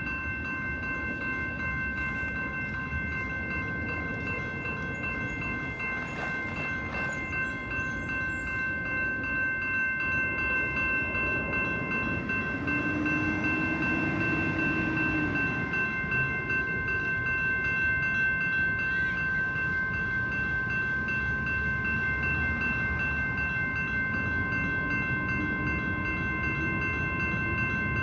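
A train running past with a steady low rumble that grows somewhat louder partway through, while several steady high-pitched tones hold throughout.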